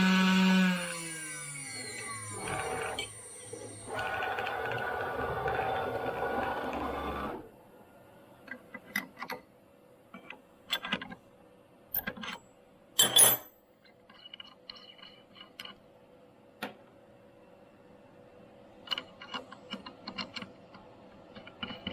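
CNC machine spindle winding down, its whine falling in pitch and fading over about two seconds. Then a few seconds of steady noise that stops suddenly, followed by scattered clicks and clinks.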